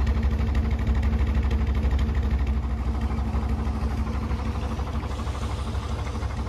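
Narrowboat diesel engine running at low revs with a fast, even beat, easing a little in volume during the second half.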